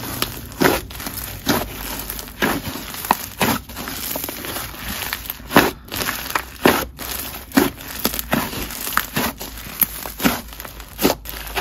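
Thick, clay-heavy butter slime pressed and folded by hand, its trapped air popping in sharp, sizzly crackles about once a second.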